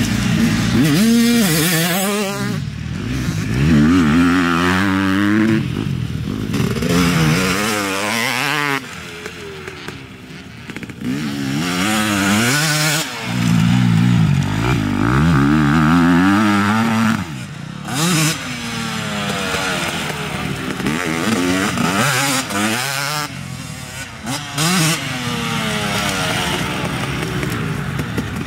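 Motocross dirt bike engine revving hard and falling off again and again as it is ridden around the track, its pitch climbing through each gear and dropping away between.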